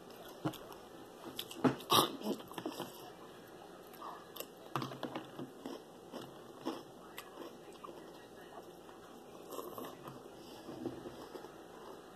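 A person chewing and crunching mouthfuls of Froot Loops cereal close to the microphone, in irregular bites, loudest about two seconds in.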